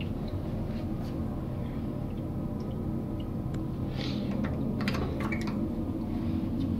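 Tail end of a commercial toilet flush: a steady low rush of water in the bowl and pipes, with a few faint drips and clicks.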